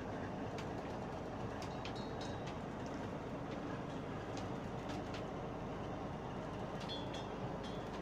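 Steady drone of a fishing launch's inboard diesel engine heard from on deck, with a scattering of short sharp clicks and rattles.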